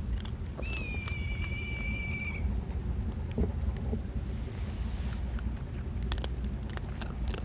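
A single high, thin animal whine or whistle, rising slightly at its start and then held level for nearly two seconds. Under it runs a steady low rumble, with scattered small clicks.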